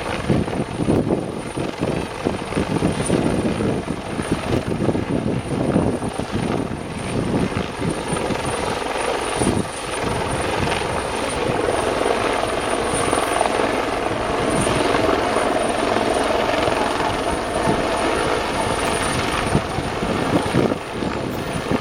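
Bell 412 twin-turbine helicopter running, its four-blade main rotor beating rapidly through the first half, then settling into a steadier drone.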